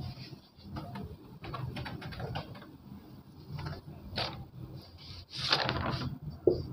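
A duster rubbing and wiping across a whiteboard in short scrapes, then a marker stroking on the board near the end, over a faint low hum.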